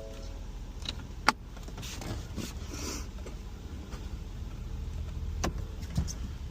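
Vehicle engine running steadily at low revs, with a few sharp clicks, the loudest about a second in.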